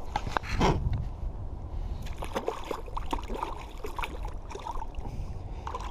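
Water splashing and dripping in a run of small, irregular splashes, with a knock at the start and a louder rush of water under a second in.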